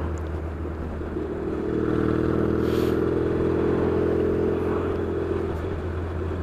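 Yamaha XS650 parallel-twin engine running on the road under way. The engine note grows louder about two seconds in, then eases back a little near the end.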